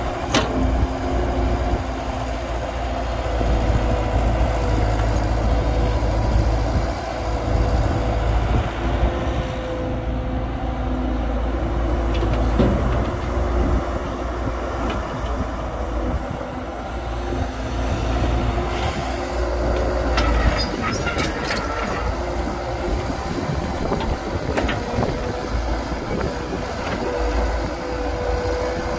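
Heavy diesel engines of an excavator and dump truck running steadily with a low rumble, with a few knocks around 20 seconds in.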